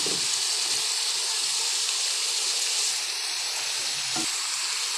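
Sautéed meat, garlic and onion sizzling steadily in oil in a wok as chunks of raw breadfruit are dropped and poured in, with a couple of soft knocks.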